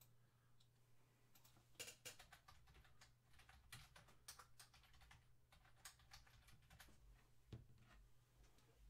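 Faint typing on a computer keyboard: a run of quick, irregular key clicks as two names are typed, stopping shortly before the end, over a low steady hum.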